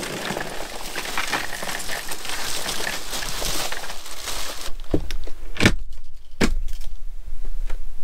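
Plastic bag of ice cubes crinkling and clattering as it is pushed down into a hard-sided RTIC cooler, then three heavy knocks as the cooler lid is shut, followed by light clicks as the rubber latch is pulled down.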